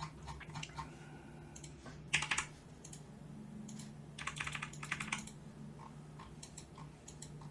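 Computer keyboard and mouse clicking, with scattered single clicks and quick flurries about two seconds in and again around four to five seconds in, over a steady low hum.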